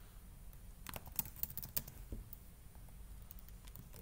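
Computer keyboard typing: a quick run of keystrokes about a second in, then a few scattered taps.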